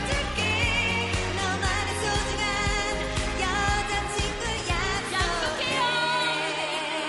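K-pop pop song sung by a girl group into handheld microphones over a backing track with bass and drums. The bass and drums drop out about six seconds in, leaving the voices over lighter accompaniment.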